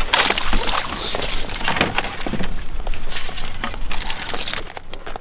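Handling noise from decoy gear with metal snap clips being pulled out of a canvas bag: rustling of fabric and line with irregular clicks and knocks.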